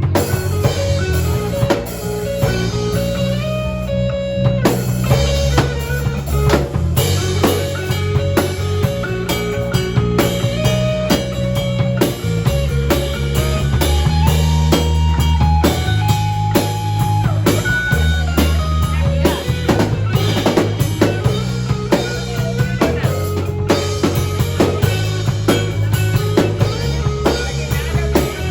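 Rock music with a drum kit, guitar and a heavy stepping bass line, played loud and steady.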